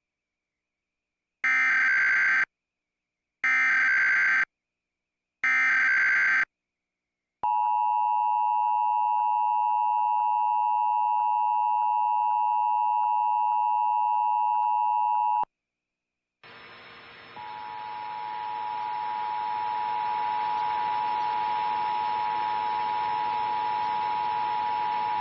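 Emergency Alert System header: three short bursts of SAME digital data tones, about a second each and two seconds apart, then the two-tone EAS attention signal (853 and 960 Hz) held steady for about eight seconds. After a brief gap, a hiss with a steady tone in it comes in and grows louder as the national test audio feed opens.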